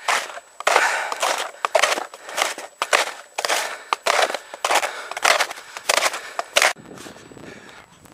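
Footsteps crunching in hard-packed snow under snowshoes with crampons, a steady climbing pace of about two steps a second, stopping about seven seconds in.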